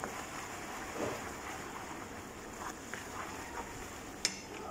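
Sugar-and-butter caramel sizzling and bubbling in a frying pan as a wooden spatula stirs it, with a steady hiss, a few soft scrapes and a sharp tap of the spatula on the pan about four seconds in.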